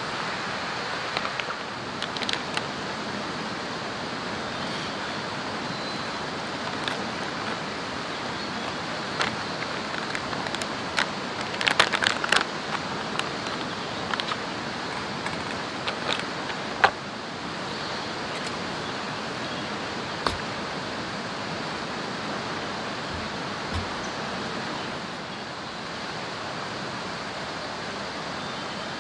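Plastic food pouches crinkling and rustling in the hands, with scattered sharp clicks and taps as food and utensils are handled, a dense cluster of crackles about twelve seconds in. Underneath, a steady rush of nearby water.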